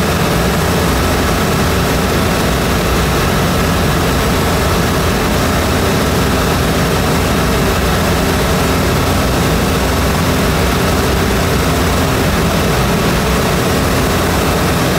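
Zenith CH750 light aircraft's piston engine and propeller running steadily in flight, a constant drone with a rush of wind noise over it, heard from inside the cockpit.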